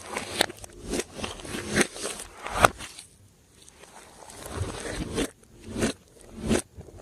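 Hands kneading and stretching glossy slime, giving irregular bursts of sticky crackling and clicking, loudest about two and a half seconds in.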